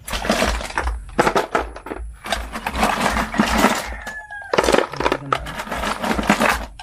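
Hard snail shells rattling and grinding against each other in a plastic basin, in irregular clattering bursts with brief pauses.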